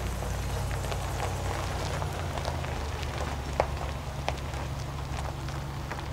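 Pickup truck with a slide-in camper driving slowly on a gravel road: a steady low engine hum with crunching, popping gravel under the tyres, and one sharper pop about three and a half seconds in.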